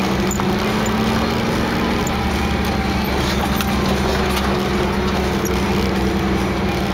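1988 Toyota 4Runner's engine running steadily under light load on a rough dirt trail, heard from inside the cab, with scattered light knocks and rattles from the truck over the ruts.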